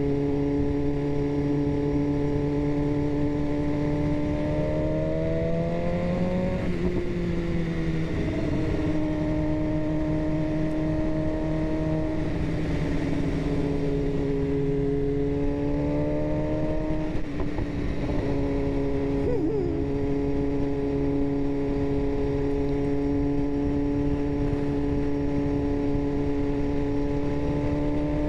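BMW S1000RR inline-four sport-bike engine under way at a steady pitch. Twice the pitch climbs and then drops back sharply, over a steady rushing noise.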